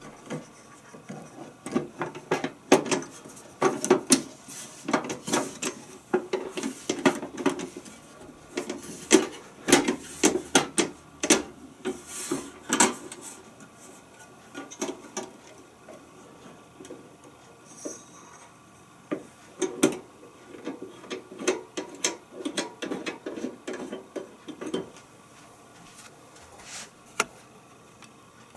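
Reese Universal contact grill being handled: its lid is lifted and set on the hinge brackets, giving irregular clicks, knocks and rubbing of metal and plastic parts. The knocking comes in two busy stretches with a lull between, and thins out near the end.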